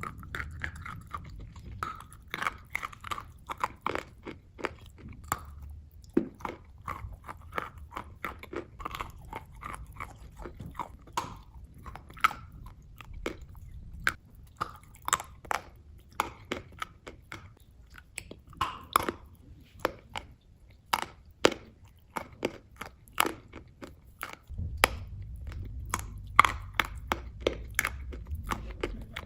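Close-up chewing of crunchy food: many sharp, irregular crunches, a few per second, over a faint low hum.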